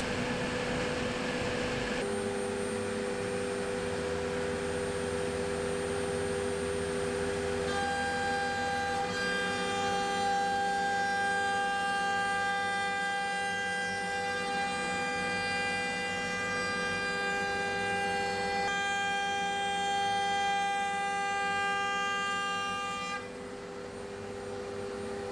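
CNC router spindle whining steadily while a round-nose bit cuts slots into a hardwood blank, a set of held tones whose mix shifts a few times during the cut and eases off near the end.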